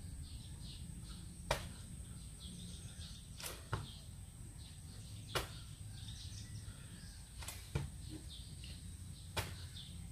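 Sharp thumps and slaps from a person doing burpees, about one every two seconds, sometimes as a quick double hit.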